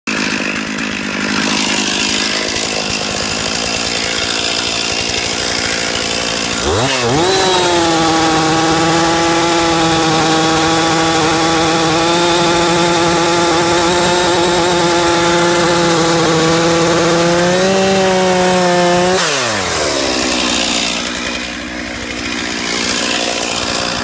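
Stihl chainsaw running loud. About seven seconds in it revs up to full throttle and holds a steady high pitch while cutting into a tree trunk, then drops back to a lower pitch about nineteen seconds in.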